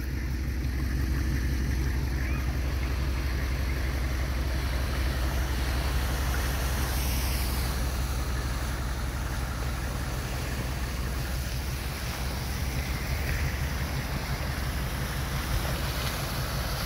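Floodwater running across a paved street and over the curb, a steady rushing with a constant low hum beneath it.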